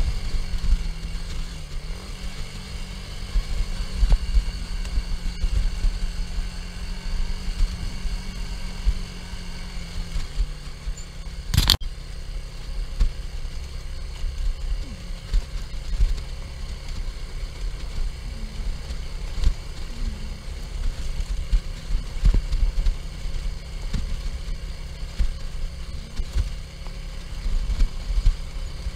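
A 180cc Chinese-built quad bike's engine running as it rides over a rough dirt track, with a low rumble and many small jolts. The engine note holds steady for about the first ten seconds and then drops. There is a single sharp click about twelve seconds in.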